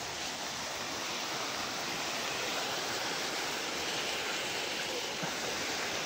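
Steady rush of running water from rain-swollen monsoon streams, with rain falling.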